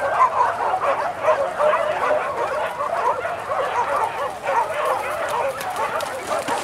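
A pack of hunting dogs barking and yelping without pause, many voices overlapping.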